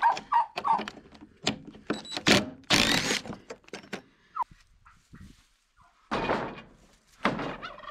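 Claw hammer striking and prying at weathered wooden stall boards and a carriage bolt: a quick series of sharp knocks, then a longer creaking scrape about three seconds in as the wood gives. Two dull wooden thunks follow later.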